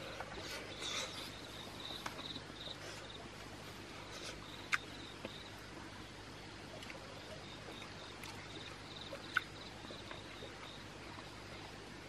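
Crickets chirping in a pulsing trill that comes and goes, with two sharp clicks, one about halfway through and one near the end.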